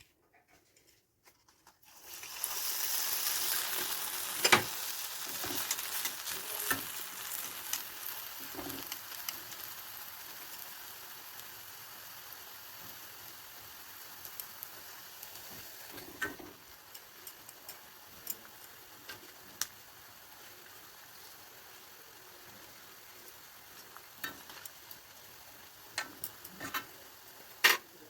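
Medu vada frying in hot oil. A loud sizzle breaks out suddenly about two seconds in and slowly dies down, with occasional sharp clicks.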